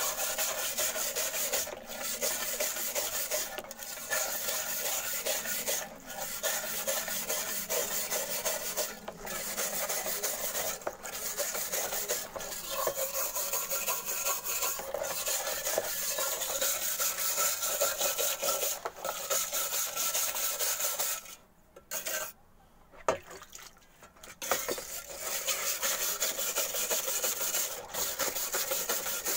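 Wet scrubbing of a rusty steel shovel blade soaking in a bucket of liquid, a steady rasping scrape in strokes with brief breaks every couple of seconds. It stops for about three seconds past the two-thirds mark, with one click in the pause, then carries on.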